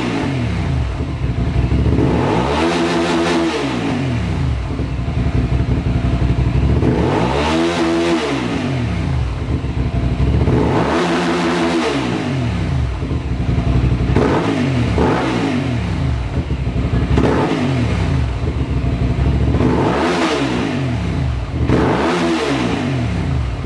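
2012 Hyosung GT650R's 650cc V-twin revved at a standstill through a custom-made exhaust. Four long revs rise and fall, then comes a run of quicker throttle blips about once a second.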